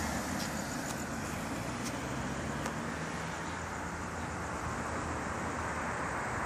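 Road traffic: cars, among them a police car, driving along a multi-lane street, a steady rush of engine and tyre noise.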